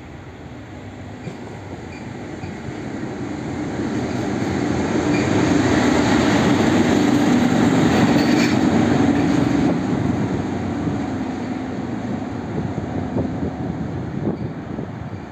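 SM31 diesel shunting locomotive running light past at close range: its engine grows louder as it approaches, is loudest about six to nine seconds in as it passes, then fades as it moves away.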